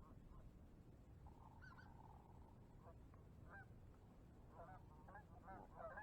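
Faint goose honking: a few scattered calls at first, then a quick run of honks near the end.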